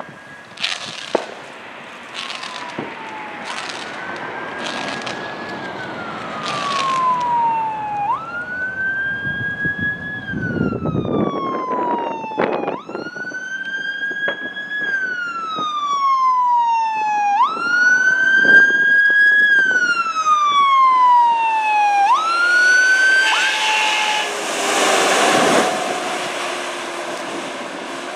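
Rosenbauer Commander fire engine's siren wailing, each cycle a quick rise then a slow fall lasting about four to five seconds, after a string of short blasts about a second apart. Near the end a loud rush of engine and road noise comes as the truck passes.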